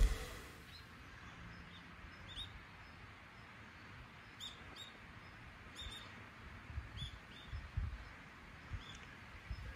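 Small birds giving scattered short, high chirps, about eight calls in all, over a quiet open-air background with a few soft low rumbles in the second half.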